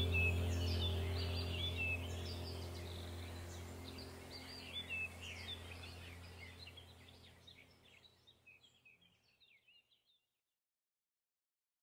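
Background ambient track of a steady low drone with birdsong chirping over it, fading out gradually to silence in the last few seconds.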